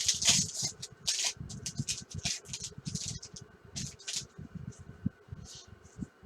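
Baseball trading cards being handled and flipped through by hand: a quick, irregular run of papery swishes and soft taps as the cards slide over one another.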